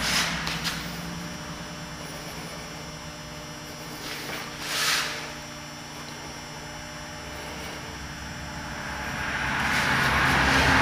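Steady low hum over a haze of background noise, with a brief rush of noise about five seconds in and a swell that builds near the end.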